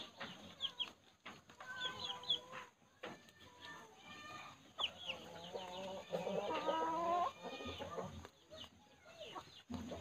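Domestic chickens clucking on and off, with a longer drawn-out call about six seconds in and a few short high chirps mixed in.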